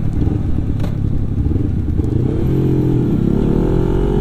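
Honda CBR250RR parallel-twin engine heard from on board as the motorcycle slows down, with rushing wind. About halfway through, a steady engine tone with several pitches comes through clearly.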